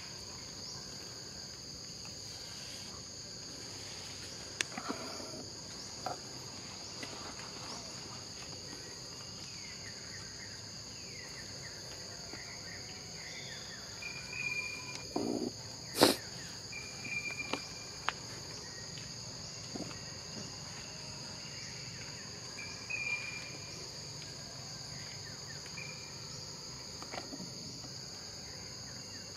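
Steady high-pitched drone of insects in the forest, two even tones held throughout. A few short chirps and brief falling calls come and go over it, and a single sharp click sounds about halfway through.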